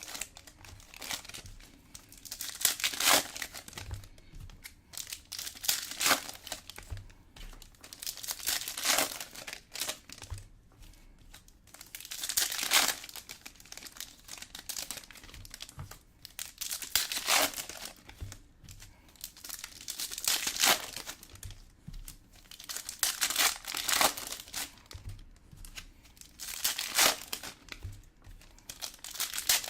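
Plastic trading-card pack wrappers crinkling and tearing in repeated bursts, one every three to four seconds.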